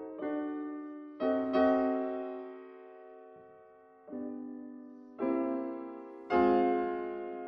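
Slow solo piano music: chords struck and left to ring and fade, several close together at the start, then a lull of about two seconds, then more chords near the end.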